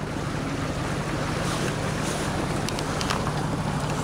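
Westerly Centaur yacht motoring along: a steady low engine drone under wind noise on the microphone, with a few faint clicks about three seconds in.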